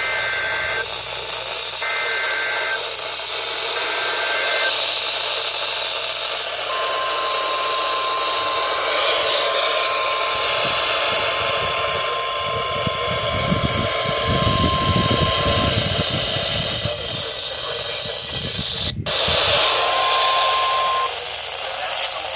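Weather radio receiving an Emergency Alert System warning. The SAME data header plays as three short screeching digital bursts, then the steady 1050 Hz warning alarm tone sounds for about nine seconds, all over constant radio static. Near the end a second, short burst of the alarm tone sounds.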